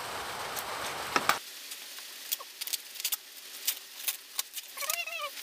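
A steady hiss cuts off abruptly about a second and a half in, just after two sharp clicks. Scattered light clicks and taps follow, and a domestic cat meows once near the end.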